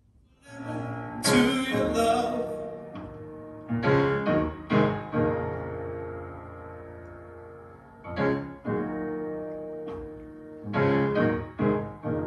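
Music played back through Polk R200 loudspeakers: a new track starts after a brief silence, with piano chords struck one after another and left to ring, with pauses between them.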